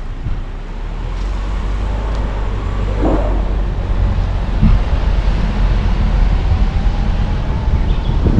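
A car being driven: steady low rumble of engine and tyre noise on the road, growing louder over the first few seconds.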